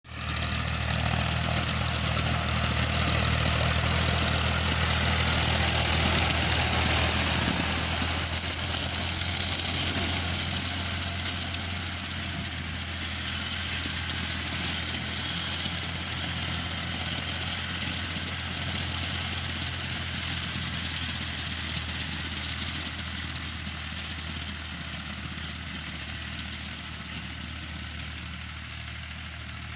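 Powertrac 445 tractor's diesel engine running steadily as it works a paddy reaper through the field, a low even drone under a broad hiss. The sound slowly fades as the tractor moves away.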